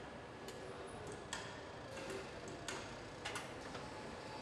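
Car assembly line ambience: a steady hum of machinery with sharp metallic clicks and taps, irregular, about one a second.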